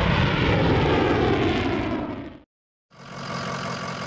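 Fighter jet sound effect: a loud rushing jet-engine noise that fades away about two and a half seconds in, followed by a short silence and then a quieter steady noise.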